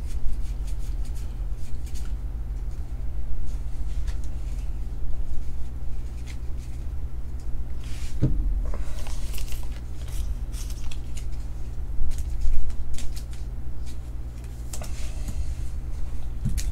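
Trading cards being handled, sorted and set down on a table, giving scattered soft clicks and short rustles over a steady low hum.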